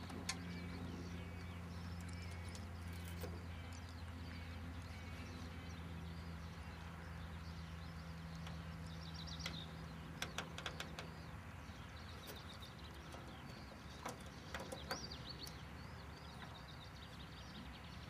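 Faint outdoor ambience: birds chirping in short trills a couple of times, over a low steady hum that fades about two-thirds of the way through, with a few light clicks.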